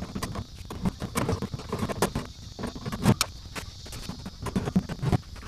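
Metal wire smoker racks rattling and clinking as they are slid back into the rack supports of an electric smoker cabinet, with a few sharper metal knocks.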